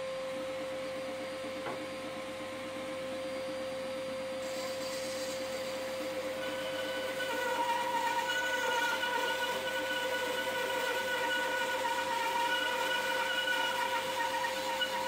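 Lumberjack BS254 10-inch bandsaw running with a steady hum. From about seven seconds in its blade cuts into a wooden board, and the sound grows louder with a higher whine over the cutting noise.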